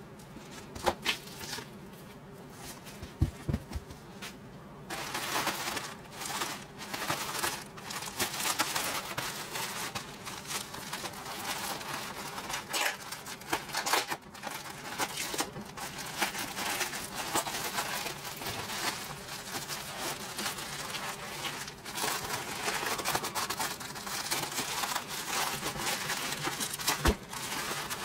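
Plastic bubble wrap being handled and pulled off a parcel: crinkling and rustling with many small sharp crackles, getting busier about five seconds in.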